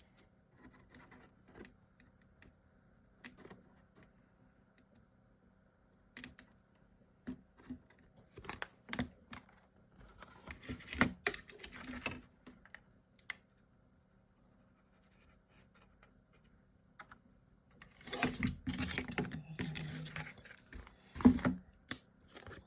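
Chipboard pieces being handled and fitted together: scattered light taps, clicks and scraping rubs, busiest about halfway through and again near the end.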